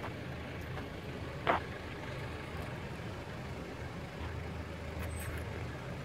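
Engine of a Mitsubishi Pajero off-roader running low and steady as it crawls over the crest of a steep dirt slope, its rumble rising a little from about four seconds in. A single sharp knock about a second and a half in.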